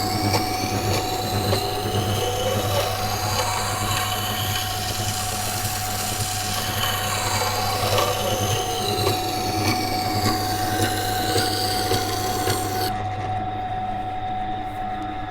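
Water-cooled sharpening grinder running with a steady motor hum while a carbon steel knife blade is drawn across the wet stone wheel to grind its secondary bevel. The scraping rises and falls in pitch with each pass, and its hiss drops away near the end, leaving the hum.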